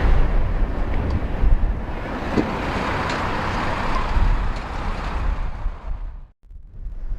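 Jet airliner engine noise as it passes on landing approach, fading away near the end, with strong wind buffeting the microphone.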